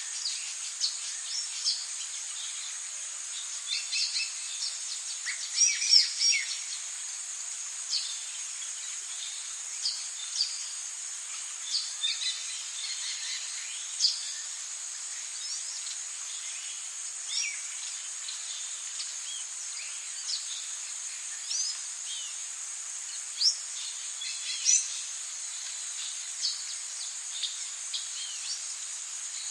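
Tropical ambience of insects keeping up a steady high-pitched drone, with short bird chirps and calls scattered throughout. A louder cluster of calls comes about six seconds in.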